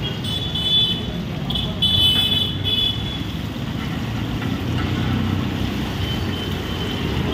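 Roadside traffic ambience: a steady low rumble of passing vehicles, with short high-pitched horn toots during the first three seconds.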